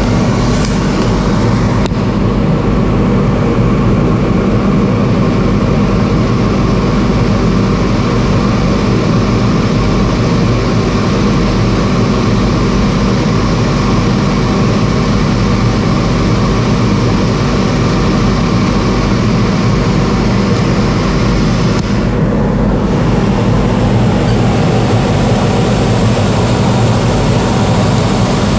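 TIG welding arc running steadily through a long weld pass on a metal sheet, over a constant low machine hum. There is a short tick at the arc start and a brief change in the high hiss about three-quarters of the way through.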